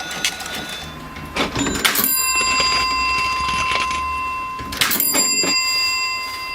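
Vintage mechanical cash register working: rattling clacks of its keys and crank mechanism, twice followed by a bell ringing on with a steady tone.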